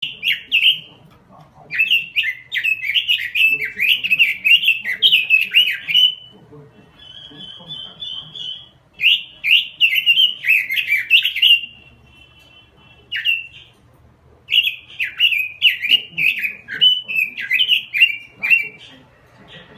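Pekin robin (red-billed leiothrix) singing full song: bouts of loud, fast warbled phrases, separated by softer, even trills.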